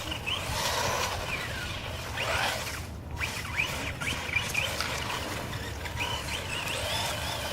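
Electric motor of a 42 mph RC car whining, its pitch gliding up and down again and again as it speeds up and slows on ice.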